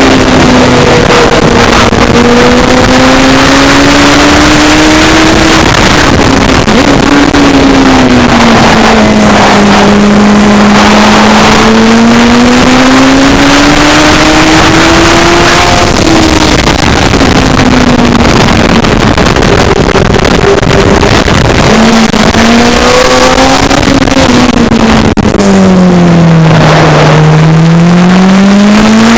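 Racing sidecar outfit's engine running hard on a circuit, heard onboard over heavy wind noise. Its pitch climbs and falls several times as it accelerates and slows, dropping lowest near the end as it brakes into a bend.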